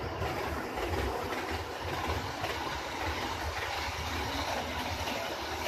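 HO scale model trains running on the layout: a steady rolling noise of wheels on track and motors, with a low rumble underneath.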